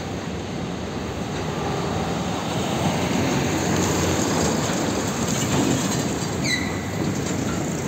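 Heavy fuel tanker truck passing close by: diesel engine and tyre rumble that builds to its loudest in the middle as the truck goes past. There is a brief high, falling squeal near the end.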